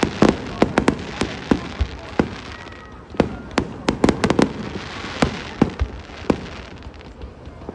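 Fireworks exploding in quick, irregular succession, many sharp bangs and crackles a second over a steady hiss, with a brief lull about two seconds in before the bursts pick up again.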